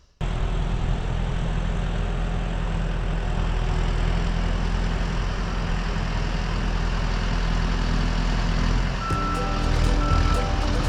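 Bulldozer's diesel engine running steadily under load. About nine seconds in, its backup alarm starts beeping, a repeated high tone as the dozer reverses.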